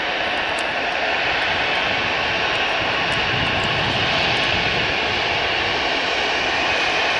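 Airliner engines running loud and steady, a broad rushing noise that grows slightly louder about a second in.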